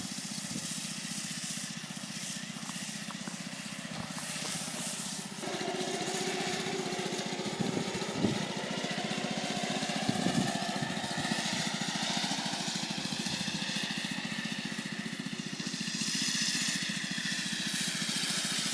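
Lawn mower engine running steadily, its pitch slowly rising and falling as it works, a little louder from about five seconds in.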